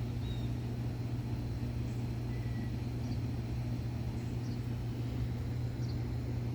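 A steady low machine hum on one pitch, with a few faint, short bird chirps now and then.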